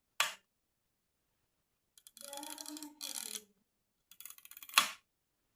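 Zenit EM 35 mm SLR's mechanical cloth focal-plane shutter worked by hand: a sharp shutter click, then about a second and a half of ratcheting as the film-advance lever cocks the shutter, then a few small ticks and a loud click as it fires again near the end.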